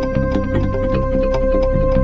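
Background music: a steady held tone over a quick, regular percussive beat and a moving bass line.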